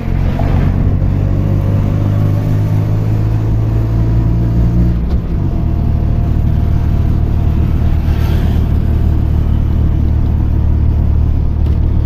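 Auto rickshaw's small engine running steadily under way, heard from inside the open cab, its note dropping lower about five seconds in.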